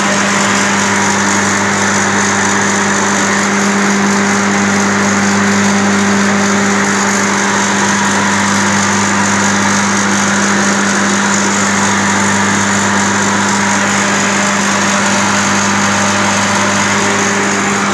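Moon screw compressor and its drive motor running steadily, a loud, even machine noise with a strong low hum throughout.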